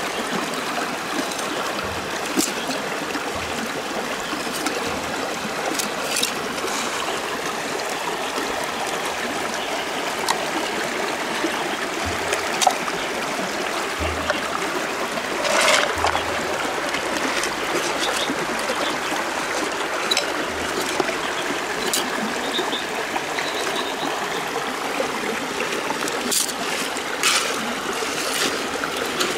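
Steady trickle of shallow river water over gravel, with scattered sharp clicks and scrapes from a knife working at a freshwater clam shell and shells knocking on the stones.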